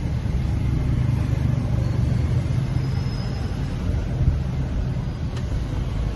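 Steady low rumble of road and engine noise from a Chery Tiggo 5x SUV on the move.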